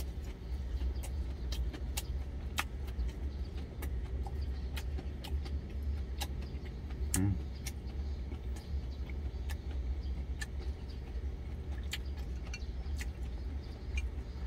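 Steady low rumble of an idling truck engine heard from inside the cab, under close-up chewing with many small sharp mouth clicks. A short low hum of the voice about halfway through.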